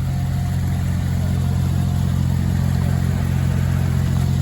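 Engine idling, a steady, unchanging low drone.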